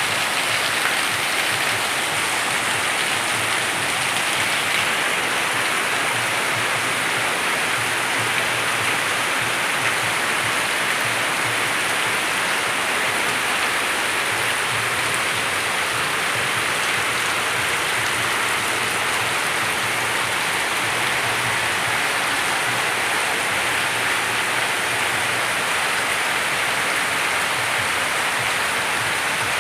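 Steady rain falling, an even hiss of rain on surfaces that stays constant throughout.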